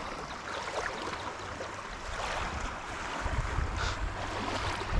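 Small waves of Lake Huron lapping at the shore, with wind buffeting the microphone from about three seconds in.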